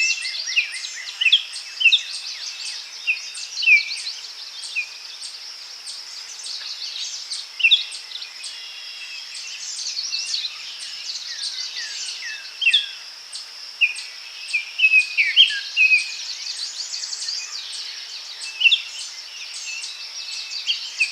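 Forest birds chirping and whistling in short, overlapping calls over a steady high insect drone, with a regular high ticking about twice a second.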